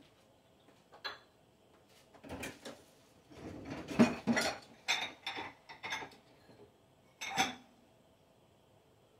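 Dishes and metal utensils clinking and clattering in a series of short knocks, the loudest about four seconds in and a last one about seven seconds in.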